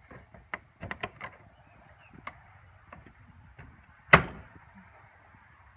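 Plastic push-in retainers being pressed into a black plastic cover. There are a few light clicks and rustles, then one sharp snap about four seconds in as a retainer seats home.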